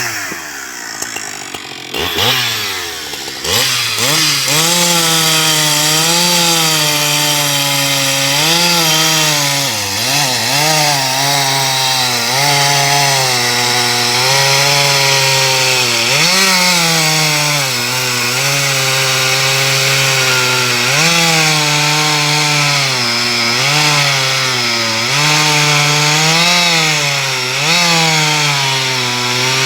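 Husqvarna 372 XP two-stroke chainsaw with a carbide-tipped chain, cutting wood. Its engine speed sags in the first couple of seconds and revs back up, then it runs at high speed with short, repeated dips in pitch.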